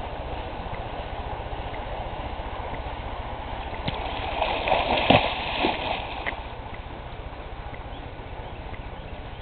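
Water splashing as a swimmer in a mermaid tail dives under, a burst of splashes about four to six seconds in with one sharp slap near the middle, over a steady rushing background.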